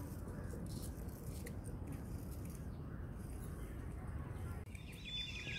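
Faint, steady low rumble of outdoor background noise with a few soft clicks. Near the end, faint high chirps come in.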